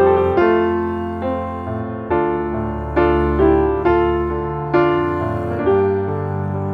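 Background piano music: slow, gentle chords struck one after another, each ringing and fading before the next.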